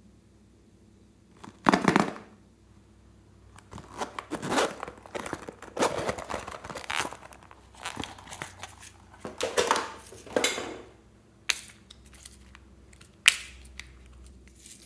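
Hands handling a zippered vinyl purse: rasping and rustling as the zipper is worked and the bag is rummaged, with sharp clicks of a clear plastic compartment case near the end.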